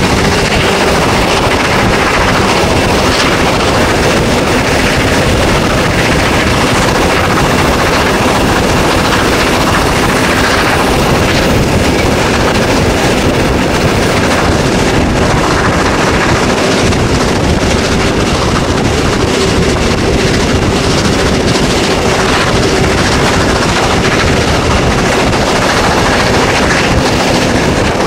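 DR class 41 two-cylinder steam locomotive working hard up a gradient, its exhaust beats heard steady and loud from an open coach window behind it, with wind buffeting the microphone.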